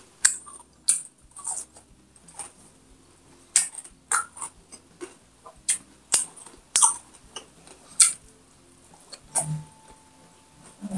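Close-miked eating sounds: wet chewing and lip smacks in short, irregular strokes, roughly one or two a second.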